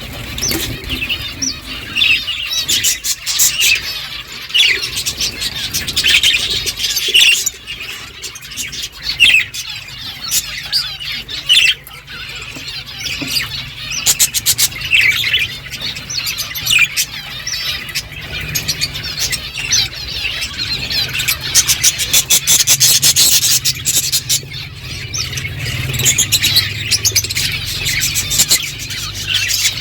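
Budgerigars chirping and chattering without a break, with several bursts of rapid clicking mixed in.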